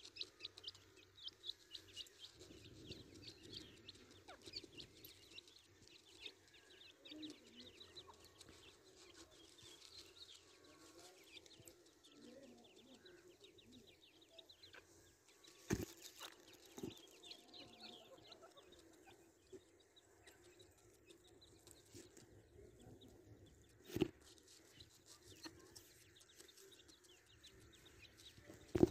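Faint, rapid high peeping of grey francolin chicks, thickest in the first ten seconds or so, with a few soft low clucks from the adults. A few sharp knocks stand out about halfway through and again later.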